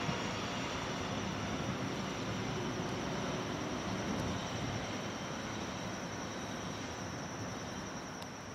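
DE10 diesel locomotive's V12 DML61ZB engine running as the locomotive pulls away, growing steadily fainter.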